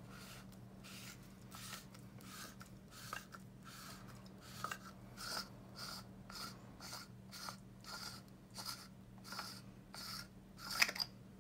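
Threaded aluminium head of a D-cell Mag-Lite being unscrewed from the barrel by hand, with a short rasping scrape at each twist, repeated roughly every half-second. One louder scrape comes near the end.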